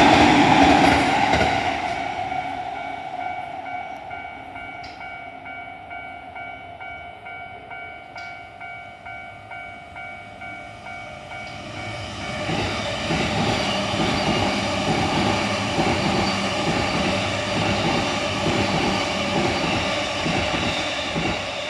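A train passes over a Japanese railway level crossing and fades after a couple of seconds, while the crossing's warning bell keeps ringing in a steady repeating beat. About twelve seconds in, a second train arrives and runs past, its wheels clattering over the rail joints.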